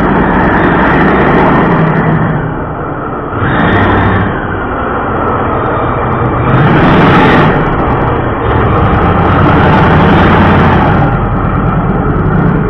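BIGFOOT monster truck's engine running hard as the truck drives across a dirt arena, surging louder about three and a half seconds in and again at about seven seconds as the truck pulls up into a wheelie.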